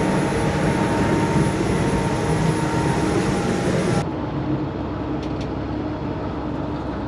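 Yanmar EX38 motorboat running underway: a steady engine drone under a rush of wind and water noise. About four seconds in, the sound changes abruptly, the high hiss dropping away and leaving a quieter engine hum.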